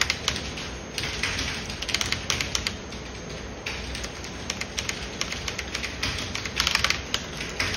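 Typing on a computer keyboard: fast runs of key clicks with short pauses between them, over a steady low room hum.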